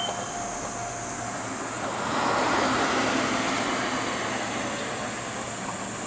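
A passing vehicle rises to a broad rushing sound about two seconds in and fades slowly, over a steady hiss and a high steady whine.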